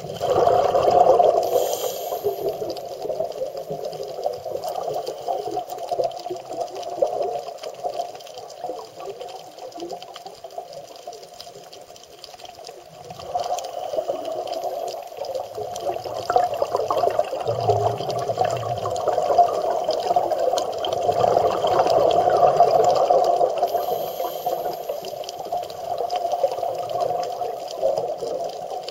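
Muffled underwater water noise picked up through a camera's underwater housing: a steady rushing that swells and fades, dropping lower for a few seconds about a third of the way in.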